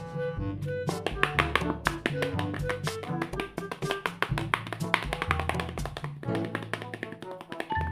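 Upbeat background music: a bouncing bass line and a stepping melody over quick, dense percussive taps.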